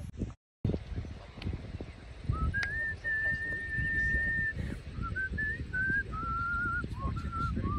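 A person whistling a slow tune: a long held note, then several shorter notes stepping down, ending on a wavering note. A low rumble of wind on the phone's microphone runs underneath.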